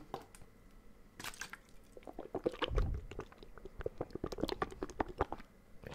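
Swallowing water from a plastic bottle, then wet mouth clicks and smacks made close to a microphone, with a low thump nearly three seconds in.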